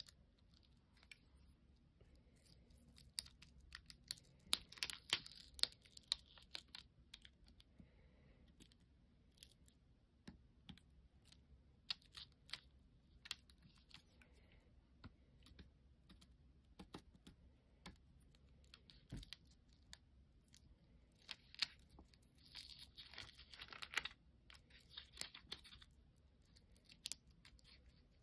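Faint, scattered small clicks and crinkles from a weeding hook picking cut pieces out of a sticker sheet and from its backing being peeled away. There are two longer spells of rustling, about five seconds in and again around twenty-three seconds in.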